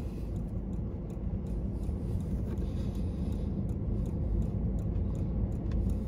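Faint, fairly even ticking from a dashboard hula dancer figure, roughly two ticks a second, over a steady low rumble in the car cabin.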